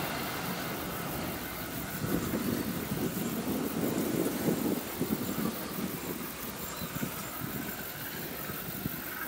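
Freight train's flat wagons rolling along curved track, their wheels rumbling and knocking irregularly on the rails. The sound eases a little in the second half as the wagons move away.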